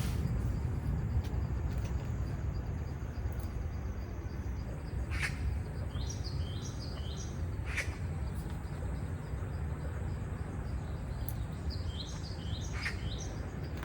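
Birds chirping in two short runs of quick falling notes, about six and twelve seconds in, over a steady low rumble, with a few sharp clicks or taps scattered through.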